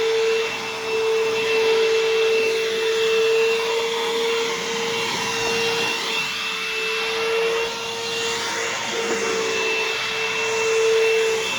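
Bissell CleanView Helix bagless upright vacuum running continuously: a steady motor hum with a thin high whine over a rush of air, the level swelling and dipping slightly.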